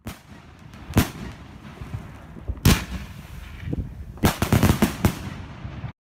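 Fireworks exploding: a sharp bang about a second in, a louder one near the three-second mark, then a quick run of about six bangs, with the sound cutting off abruptly near the end.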